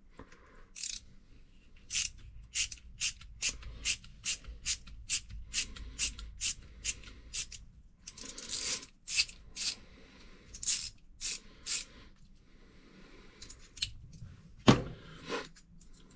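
Screwdriver turning the washer screw out of a faucet stem: a run of short, evenly spaced clicking strokes, two or three a second, then a single sharp knock near the end.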